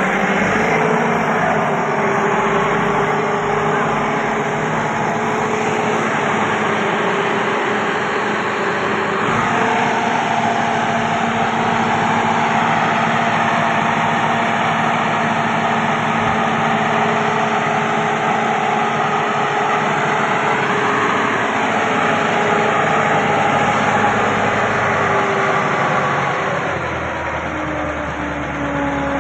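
Massey Ferguson tractor's diesel engine running steadily under throttle, driving the hydraulic pump that raises the brick-loaded tipping trolley; the revs shift slightly and fall away near the end.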